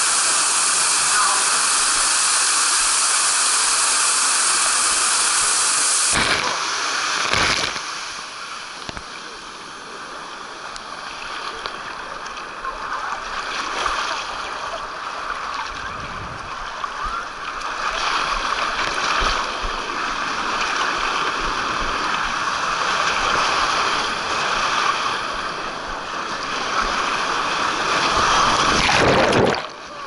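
Rushing water on a water slide: a loud, steady hiss until about six seconds in, where it changes abruptly, then water rushing and sloshing down the flume with surges of splashing, loudest near the end.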